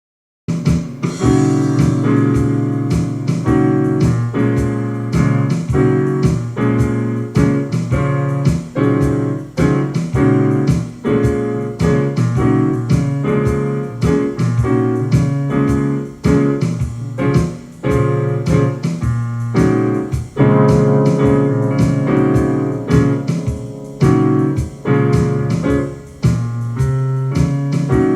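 Piano music, chords and notes played in a jazz style, starting about half a second in.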